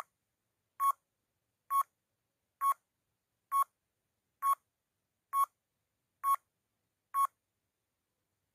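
Countdown timer sound effect: nine short electronic beeps, a little under one a second, each marking one second of the count from nine down to one.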